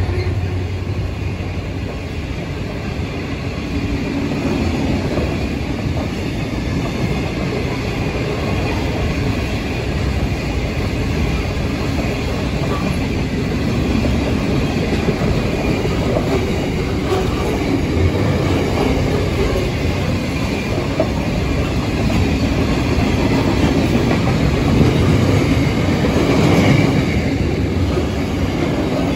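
Freight wagons rolling past at close range: a steady rumble and clatter of steel wheels on the rails, first under container flat wagons and then under flat wagons loaded with steel.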